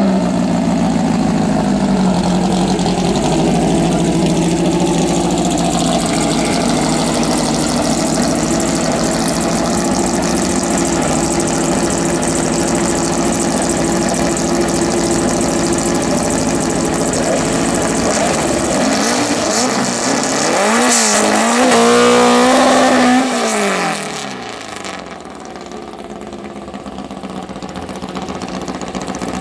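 Boxer engine of a drag-racing VW split-window panel van running at a steady idle. About 19 seconds in it is revved up and down in quick blips, held high briefly, then drops sharply back to a quieter idle.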